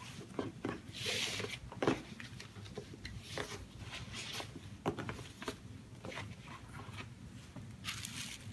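Paper packaging being handled: soft rustles with light taps and clicks as a gift box's ribbon is undone and its lid lifted, the sharpest tap about two seconds in, then a louder rustle of tissue paper near the end.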